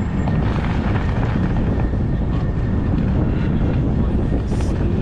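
Steady low wind rumble on the microphone mixed with tyre noise from an electric bike riding along a snowy path.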